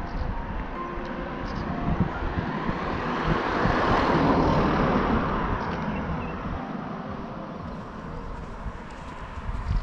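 A car passing on the road: tyre and engine noise swells to a peak about four seconds in, then fades away.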